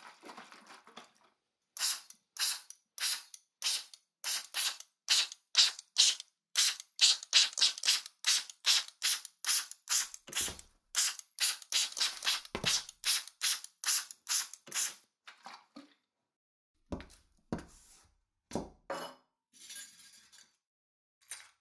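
Trigger spray bottle of sea salt spray spritzed over and over in quick succession, about two or three short hissing squirts a second for some thirteen seconds. A few sparser squirts and handling sounds follow near the end.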